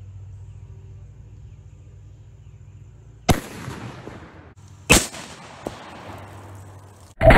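A .458 Winchester Magnum big-bore rifle shot about three seconds in, a single sharp report with a trailing decay. Two more sharp reports follow, the last and loudest near the end, over a steady low hum.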